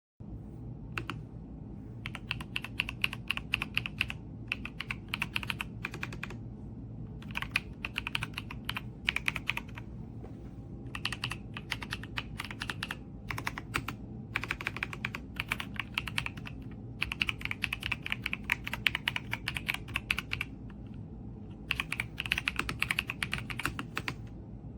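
Typing on a mechanical keyboard: runs of quick key clicks, each a couple of seconds long, separated by brief pauses, over a steady low hum.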